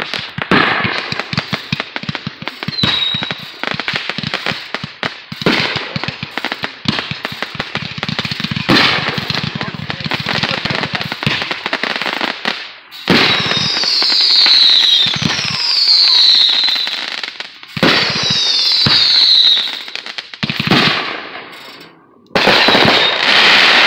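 Aerial fireworks going off: a dense run of rapid pops and crackles, then three loud bursts, each with a falling whistle. Another loud burst of reports comes near the end.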